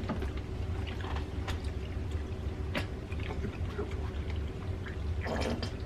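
Mealtime table sounds: scattered light clicks and taps of cutlery and plates as people eat, with a brief noisy burst near the end, over a steady low hum.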